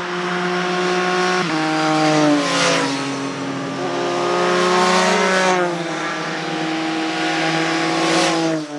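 Two motorcycles riding past with their engines running. The engine note steps down about a second and a half in, climbs again near the middle, then falls away, with a rush of passing sound a few times.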